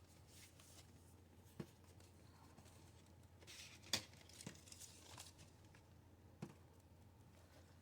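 Faint handling of boxed action figures: a few light taps and knocks on the packaging, with a short crinkle of the plastic window box partway through; the loudest tap comes about four seconds in.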